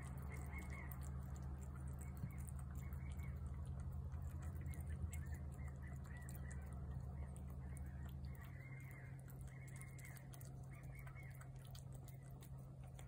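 A cat eating wet food from a plate, with faint, irregular wet chewing and licking clicks. Under them runs a steady low hum that drops away about eight seconds in.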